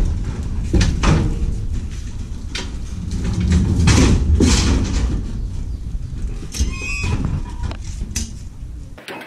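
Manual pallet jack rolling a heavy crate across a truck's ribbed metal liftgate: a run of clanks and rattles over a steady low rumble, with a brief squeak about seven seconds in.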